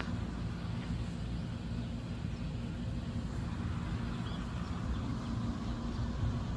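Power Smart lawn mower running steadily at an even speed.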